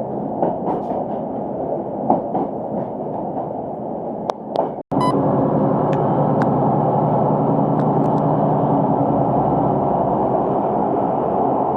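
Passenger train running along the line, heard from inside the carriage: a steady rumble with a few clicks and knocks. About five seconds in the sound cuts out for an instant and comes back as a steadier, slightly louder running noise.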